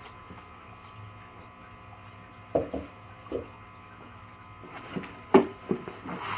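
Siren kit parts and packaging being handled: a few soft knocks and rustles, two in the middle and a cluster near the end, the loudest about five seconds in, over a steady electrical hum.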